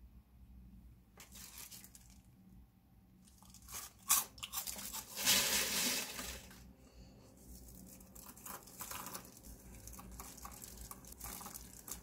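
Crinkling plastic and crunchy croutons being handled, with a sharp click about four seconds in and the loudest burst of rustling between about five and six and a half seconds, then smaller scattered rustles.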